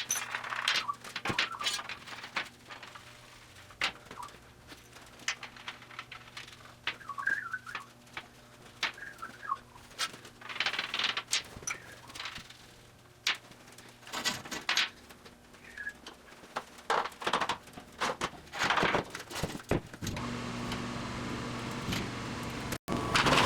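Workshop handling noises: scattered clicks, knocks and rattles with a few brief squeaks, over a faint steady hum. Near the end a steady machine-like noise starts and keeps going.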